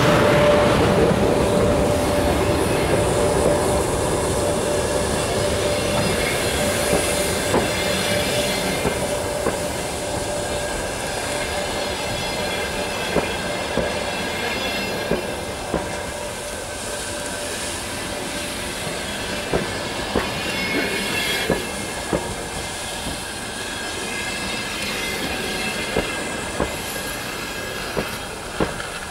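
Passenger carriages of an arriving express train, hauled by an EP1M electric locomotive, rolling past as the train slows: wheels clicking over rail joints and a high squeal from the wheels and brakes. A steady hum from the locomotive fades away over the first several seconds as it pulls ahead.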